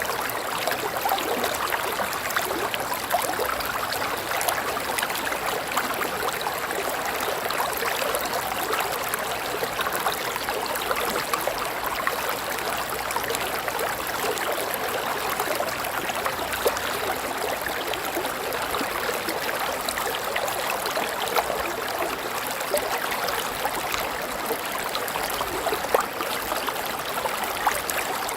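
River water flowing steadily over rocks, a continuous rushing and babbling with small splashes now and then.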